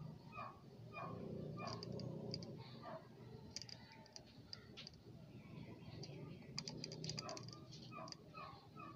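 Short falling bird chirps, several in a row in the first three seconds and again near the end, with scattered sharp clicks and a low steady hum underneath.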